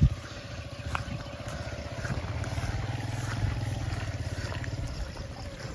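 Small motorcycle engine running at low speed, a little louder in the middle and easing off toward the end.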